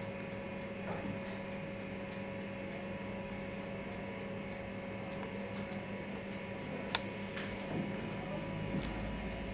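Steady electrical hum and room tone, with one sharp click about seven seconds in and a few soft knocks near the end.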